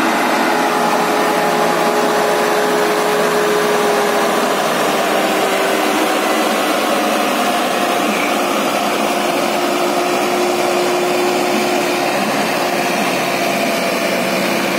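Sonalika 60 RX tractor's diesel engine running at steady revs under load, pulling a fully loaded trolley of sand, its pitch wavering slightly.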